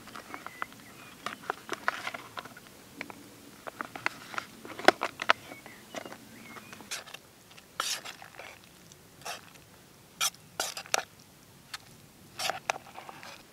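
Metal spoon scraping and clinking against a foil tuna pouch and a metal mug as tuna is scooped out and stirred into pasta, with the pouch crinkling. An irregular series of short clicks and scrapes, the sharpest about five seconds in and more around eight, ten to eleven and twelve seconds.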